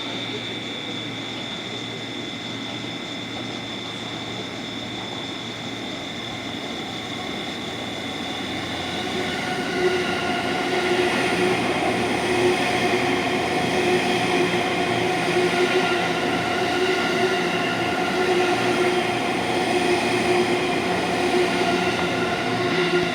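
E257-series electric limited-express train running through a station without stopping. It gets louder about ten seconds in as the cars pass, with a steady whine of several tones over the rail noise.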